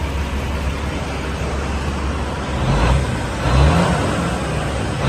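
Heavy diesel engine of a Kenworth T800 truck tractor idling with a steady low hum, swelling briefly twice, about three and three and a half seconds in, as the engine note rises.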